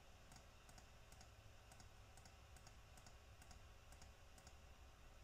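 Faint computer mouse button clicks, about two a second, over near-silent room tone.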